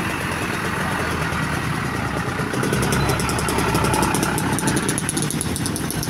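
Engine of a large road vehicle running at idle, a little louder about three seconds in, with a fast, even ticking clatter over the second half.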